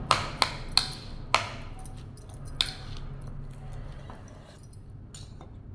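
A metal spoon clinking sharply about five times in the first three seconds, short taps with a brief ring, as spice is spooned out.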